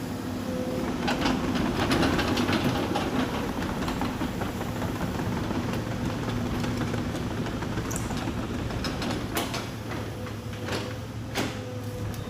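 Excavator diesel engine running steadily, working harder for a moment about a second in. Sharp knocks and clanks come in a cluster then and again several times near the end.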